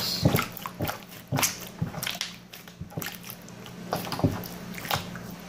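Sticky slime being kneaded and pulled apart by hand, giving irregular wet squishes, clicks and pops over a low steady hum.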